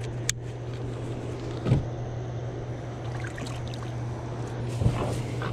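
A steady low hum with a sharp click and two dull thumps from the canoe's hull and gunwale as the man shifts about in it.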